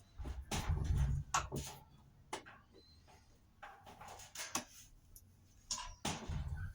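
Tools and parts being handled during a washing-machine repair: irregular clicks and knocks, with heavier low thuds about half a second in and again near the end.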